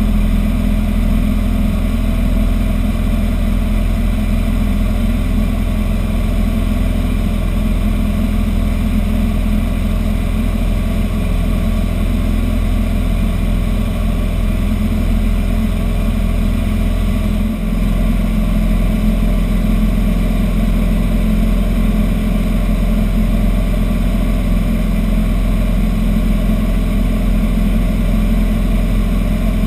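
Robin DR400 light aircraft's piston engine and propeller at takeoff power, heard from inside the cockpit through the takeoff roll and climb-out: a loud, steady drone whose note shifts slightly a little past halfway.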